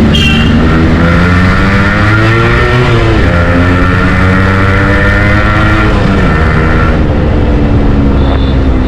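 Yamaha RX100's single-cylinder two-stroke engine pulling under way. Its pitch rises, drops at a gear change about three seconds in, climbs again, drops at a second shift about six seconds in, then holds steady.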